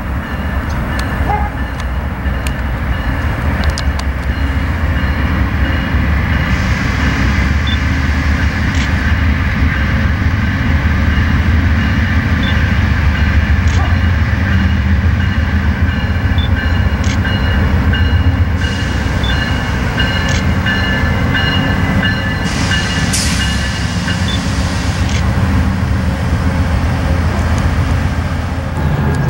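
Amtrak GE Genesis diesel-electric locomotive running steadily as it leads a passenger train past, with a loud low drone from the locomotive and noise from the wheels and rails.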